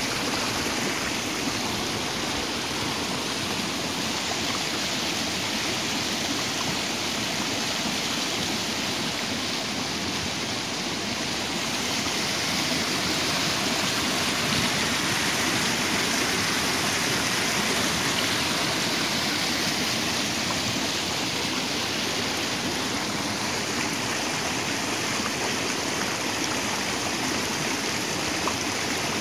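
Small stream rushing and splashing over rocks in a shallow rapid, a steady water noise that gets a little louder through the middle.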